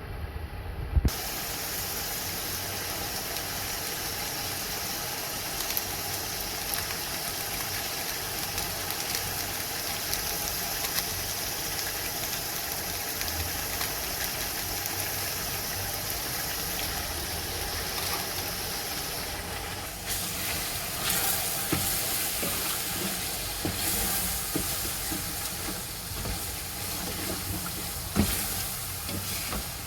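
Food sizzling as it fries in hot oil in a pan. The steady hiss starts suddenly with a knock about a second in, and in the last third it is louder and uneven, with occasional knocks.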